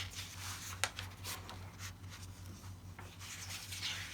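Pages of a large, thin magazine rustling and sliding as they are handled and turned, with one sharp paper snap about a second in.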